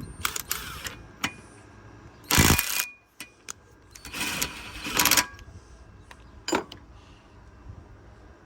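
Hyper Tough 12 V brushed cordless impact driver hammering under load in two short bursts, one about half a second long and one about a second long, while driving against the 60 foot-pound torque test. A few sharp clicks come before the bursts and a single knock follows them.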